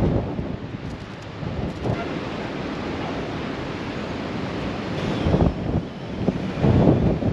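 Wind buffeting the microphone on a ferry's open deck at sea, over a steady rush of sea water. Gusts swell about five seconds in and again near the end.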